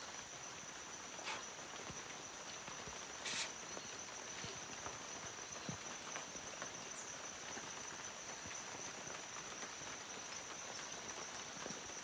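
Rainforest ambience: a steady high-pitched insect drone over a soft background hiss, with a sharp tap about three and a half seconds in.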